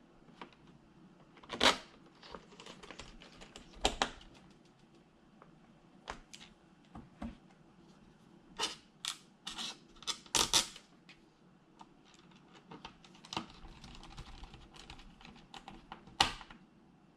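Small Phillips screwdriver putting screws back into the underside of a plastic laptop case: irregular sharp clicks and taps of the driver, screws and case, with a few louder knocks.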